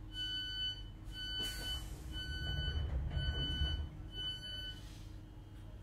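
Five steady electronic beeps from a Class 321 electric multiple unit, each about two-thirds of a second long, about one a second, typical of the door warning tone inside the coach. Under them is a low rumble that swells in the middle and fades.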